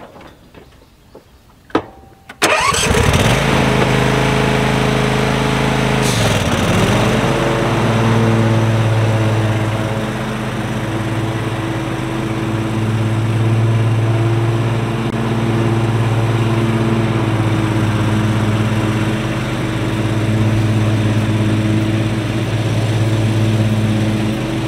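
John Deere Z515E zero-turn mower's 24-horsepower Briggs & Stratton engine is started after a few small clicks and revs up about two and a half seconds in. About six seconds in there is a click and the engine speed dips briefly and recovers. It then runs steadily as the mower drives off mowing.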